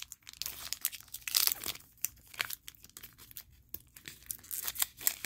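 A Garbage Pail Kids trading-card pack's foil wrapper being crinkled and torn open by hand: a run of irregular crackles and rips.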